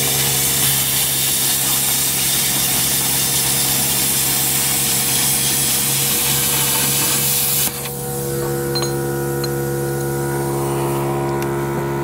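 Hypertherm Powermax30 AIR plasma cutter cutting through a steel track-frame plate: a loud, steady hiss of the arc and air that cuts off abruptly about eight seconds in. The cutter's built-in air compressor hums underneath and keeps running after the cut stops, with a few small ticks.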